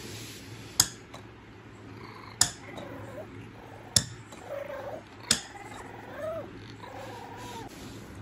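A puppy whimpering softly in short wavering cries, with four sharp knocks about a second and a half apart as a spiky rubber ball hits the hard floor.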